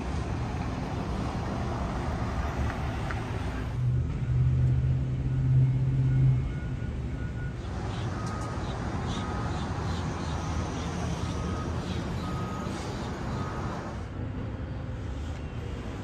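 Steady street traffic rumble, with a louder vehicle engine passing between about four and six and a half seconds in. From about the middle, a backup alarm beeps at a steady rate for some five seconds.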